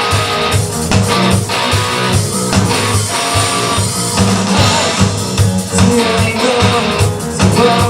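Rock band playing live: guitars strummed over bass and drums, in an instrumental passage without singing.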